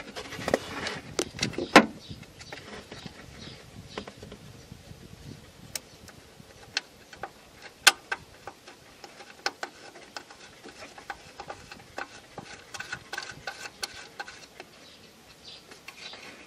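Irregular metallic clicks and taps of a bolt and tools being handled while the alternator's lower mounting bolt is fitted from underneath. Two louder knocks come about 2 s and 8 s in.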